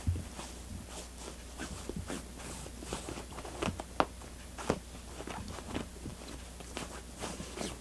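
A cat digging at the lining of a soft fabric cat bed with its front paws: an irregular run of short scratching and rustling scuffs, with a sharper tap about four seconds in and another soon after.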